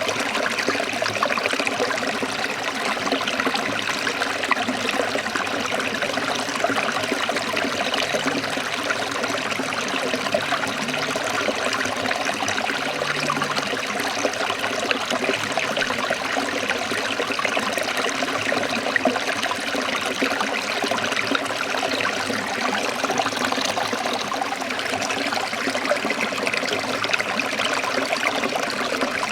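Forest stream running and trickling over rocks, a steady rush of water.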